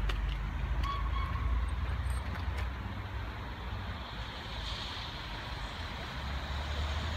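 Steam train approaching in the distance, heard as a low steady rumble under wind on the microphone, with a brief hiss about five seconds in.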